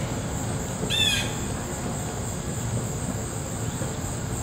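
A bird gives one short call about a second in, over a steady high-pitched insect drone in the woods.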